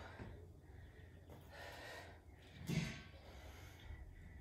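A woman's faint, effortful breathing while she does slow step-ups onto a chair. There are a few breaths, the loudest just under three seconds in.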